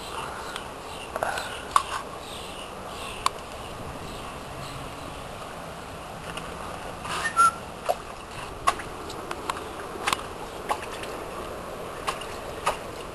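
Steady outdoor background noise with a dozen or so short, sharp chirps and clicks scattered through it, some with a brief whistle-like note.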